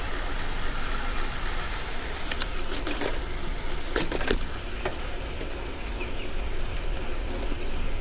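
Wind and road noise from riding a bicycle, steady throughout, with a few brief rattles about two and a half and four seconds in.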